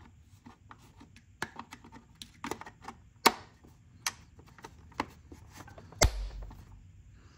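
Irregular clicks and knocks of a chainsaw that isn't running being handled, with a sharp knock about three seconds in and a heavier thump with a brief low rumble about six seconds in.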